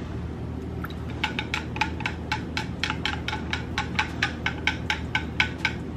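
Metal straw stirring a mixed drink in a glass, clinking against the side about four times a second; the stirring starts about a second in.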